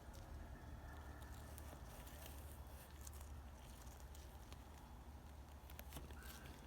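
Near silence: a steady low room hum with a few faint scattered ticks.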